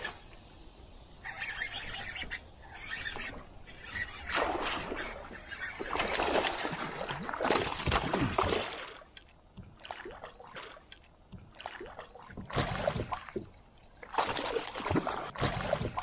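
Water splashing as a largemouth bass strikes a topwater lure and jumps, thrashing at the surface. The heaviest splashing comes around the middle, with more bursts of splashing near the end as the hooked fish fights.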